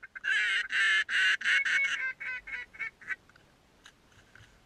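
Waterfowl calling: a quick run of loud, pitched calls that grow shorter and fainter and die out about three seconds in.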